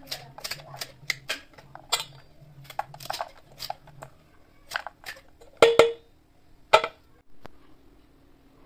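Cabbage being shredded with a handheld plastic multi-blade vegetable cutter: quick crisp crunching snips as the blades close through the leaves, about three a second, then two louder clacks a little past the middle.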